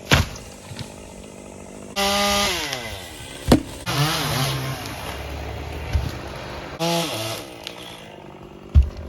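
Chainsaw revved in short bursts, twice, its pitch dropping as the throttle is let off, with a wavering stretch between. A few sharp knocks are heard in between.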